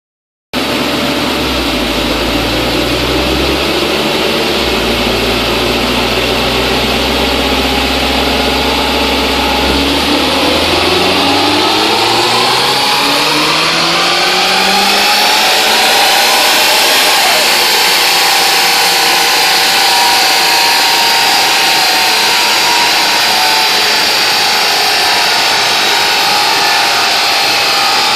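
Modified Toyota 86's 2.0-litre flat-four running through GReddy twin exhaust mufflers on a chassis dyno. It runs low and steady for about ten seconds, then climbs in pitch over some six seconds and holds at high revs.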